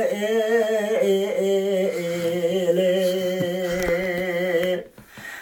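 An unaccompanied man's voice singing a Turkish folk song (türkü) in long, wavering held notes without clear words, breaking off for a breath near the end.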